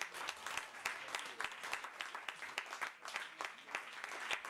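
Audience applauding: many hands clapping at once.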